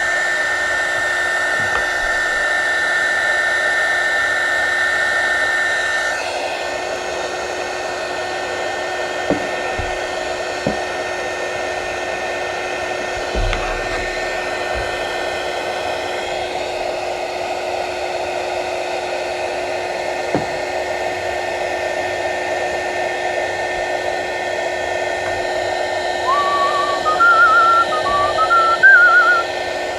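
Low-power heat gun blowing steadily while shrinking glue-lined marine heat-shrink tubing over a crimped cable lug; a high steady tone in its sound stops about six seconds in. Near the end a person whistles a tune over it.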